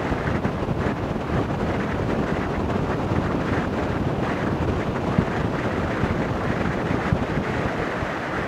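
Strong wind roaring across a foam-covered microphone fitted with a furry windscreen: an uneven, rumbling roar with no let-up.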